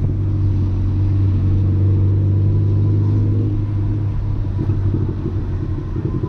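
Audi A3 1.8T 20-valve turbocharged inline-four engine running steadily under way with a deep, even drone. About halfway through, the engine note turns rougher and less even.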